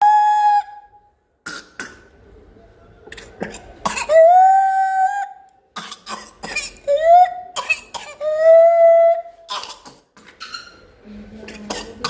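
Whooping cough (pertussis) fit: runs of short, sharp coughs, each followed by a long, high-pitched whoop as breath is drawn back in, rising at first and then held for about a second. The whoop on inhalation after a coughing run is the hallmark of pertussis.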